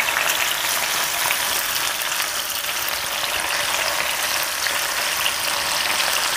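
Marinated tilapia fillets frying in a pan of oil: a steady sizzle with fine crackling throughout.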